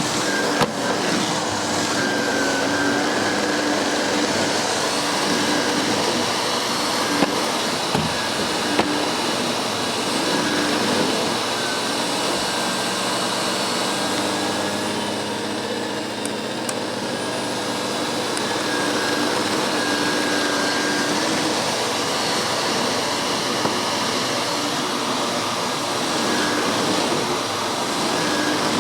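Miele S5 Callisto canister vacuum cleaner running steadily, its motor whine wavering slightly, with a few brief sharp clicks in the first ten seconds.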